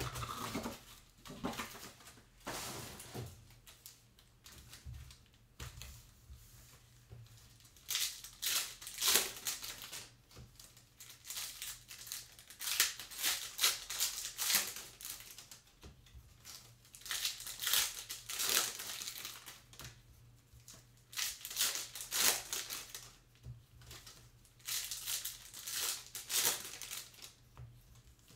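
Foil trading-card pack wrappers crinkling and rustling in irregular bursts as the packs are handled and torn open.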